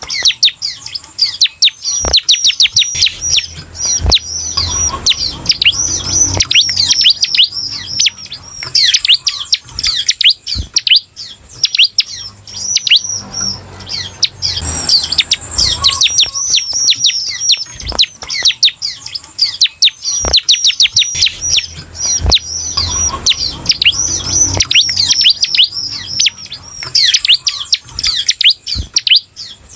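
Bar-winged prinia (ciblek) singing an unbroken run of fast, high, downward-sweeping notes. A few sharp taps come in between, from the bird landing on the cage's perches and bars.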